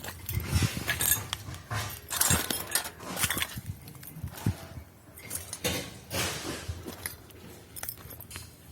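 Pieces of scrap metal clinking and knocking together irregularly as they are handled, with short scrapes in between.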